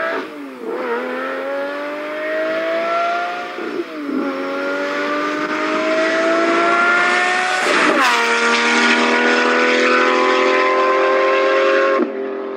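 Race car engine accelerating through the gears: its pitch climbs and drops sharply at each of three shifts, about one, four and eight seconds in, then holds nearly steady before cutting off suddenly near the end.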